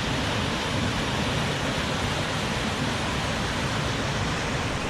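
Willaby Falls, swollen and raging after heavy rain: a loud, steady rush of falling water.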